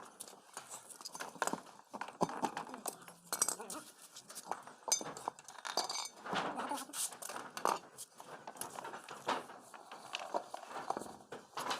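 Irregular metallic clinks and knocks from work on a tube-well hand pump.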